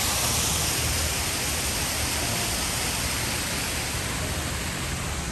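Waterfall rushing steadily, a dense hiss of falling water that fades slightly toward the end.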